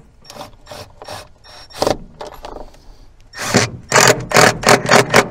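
Cordless drill/driver driving long screws with fender washers through a washdown pump's base into a plastic box floor, run in short trigger bursts. A few light strokes come first, then from about halfway a quick run of about six loud bursts as the screws are driven home.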